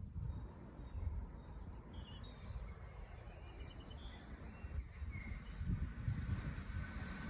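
Small birds chirping outdoors: a few short whistled notes and a quick ticking trill over a steady low rumble.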